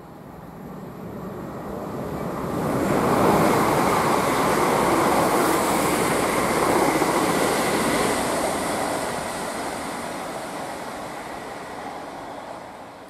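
London Northwestern Railway Class 350 Desiro electric multiple unit passing at speed, wheels rushing on the rails. The sound swells over the first few seconds, holds at its loudest for several seconds with a thin steady whine, then dies away.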